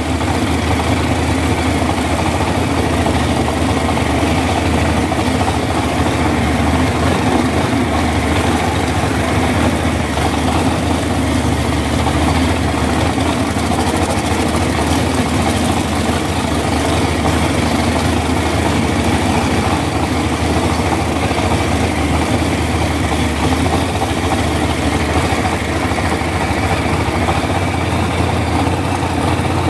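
Performance boat's engine idling as the boat moves slowly through calm water, a steady deep rumble that holds unchanged throughout.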